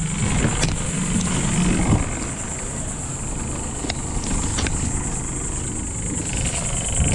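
Boat outboard motor running steadily at low speed under way, heard from the bow with water and wind noise; the engine is running rough. A few light knocks from the bow line and cleat.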